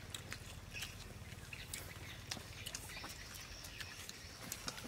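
Faint sounds of people eating: chewing and lip-smacking with scattered small clicks and ticks.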